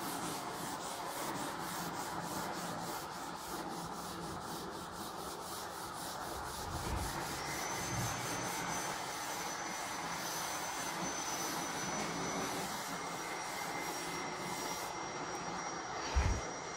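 Blackboard duster scrubbing back and forth across a chalkboard, wiping off chalk writing: a steady rubbing hiss. A few low thumps come near the end.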